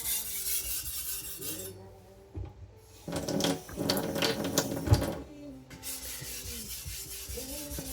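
Carbon-steel Chinese cleaver's edge being stroked back and forth on a wet whetstone under only the knife's own weight: a scraping rub, stopping briefly about two seconds in, louder strokes from about three to five seconds, then a softer rub.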